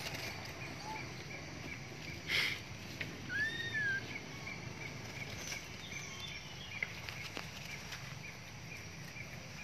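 Forest ambience: a steady hiss with a faint chirp repeating a few times a second. A brief noisy burst comes about two seconds in, and a short rising-then-falling whistled call follows just after.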